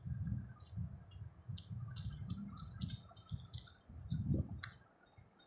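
Close-miked eating sounds of chicken biryani being eaten by hand: chewing with many quick wet clicks and lip smacks.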